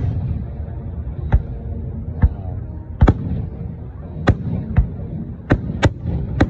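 Aerial firework shells bursting in the sky: about eight sharp booms at uneven intervals, over a steady low rumble with faint voices.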